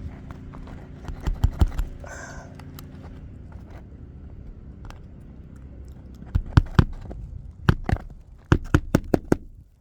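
Hand hammer driving roofing nails: a few quick blows about a second in, then three short runs of blows in the second half.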